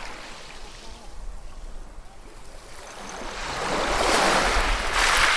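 Ocean waves breaking on a shore: a steady hiss of surf, then a wave swelling up from about halfway through and crashing loudest near the end.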